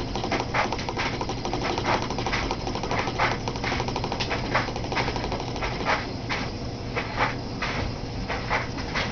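Homemade thermoacoustic Stirling engine running, its 50 ml glass syringe power piston oscillating in the barrel with a fast, even mechanical rattle. Louder sharp ticks come at an uneven two to three a second over a steady low hum.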